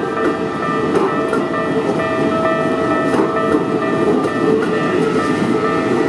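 Keikyu New 1000 series train passing close by, its wheels rumbling and knocking over the rail joints, over the steady ringing of the level-crossing warning bell.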